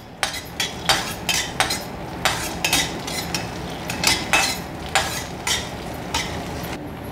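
A perforated steel ladle scraping and clinking against a stainless steel kadai, about two strokes a second, as cashew nuts are stirred while they fry in ghee. A steady faint sizzle runs underneath.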